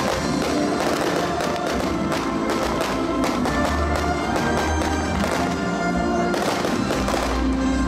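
Music playing, with the bangs and crackle of fireworks mixed in.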